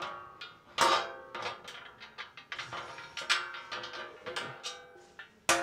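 Steel bash plate knocking and clanking against the Toyota Hilux underbody as it is held up and its bolts are started, several irregular metallic knocks that each ring on briefly. The loudest knocks come about a second in and near the end.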